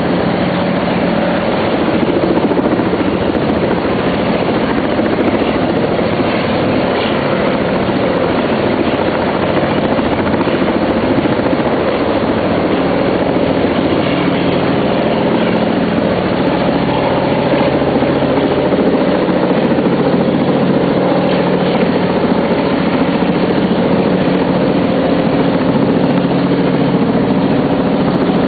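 Helicopter running steadily during a sling-load lift of a rooftop condenser unit: an unbroken rotor and engine drone that holds the same pitch throughout.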